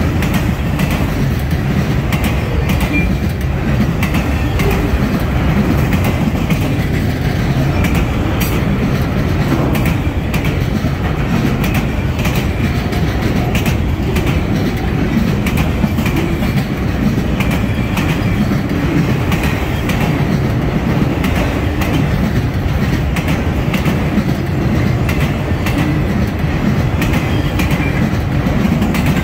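Autorack cars of a freight train rolling past: a steady rumble of steel wheels on the rails, with repeated clicking as the wheels run over rail joints.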